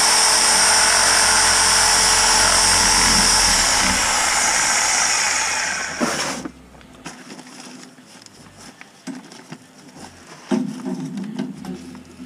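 Reciprocating saw (sawzall) cutting through cast iron drain pipe, running steadily at full speed for about six seconds, then stopping abruptly. Afterwards come quieter scraping and knocking, with a short, quieter burst near the end.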